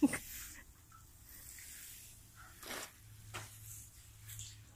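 Water from a watering can sprinkling onto loose soil: a faint, soft hiss with a few light taps. A single sharp knock right at the start.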